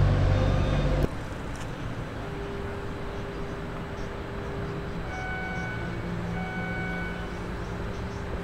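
A diesel engine rumbling for about the first second, cut off suddenly. After it comes a quieter steady outdoor hum of distant traffic with a faint steady whine, and two beeps about a second apart in the middle.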